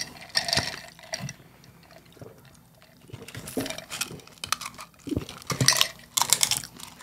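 Close-miked wet mouth sounds of eating and drinking: chewing, and slurping iced soda through a straw, coming in short spells with a quieter stretch about two seconds in.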